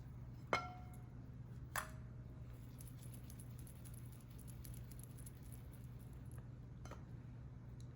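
Two sharp clinks with a short ring, about a second apart, from a utensil or dish knocking against kitchenware, then a fainter knock near the end, over a steady low hum.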